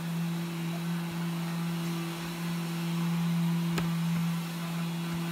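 A steady low hum on one pitch with a fainter overtone above it, and a light click about four seconds in.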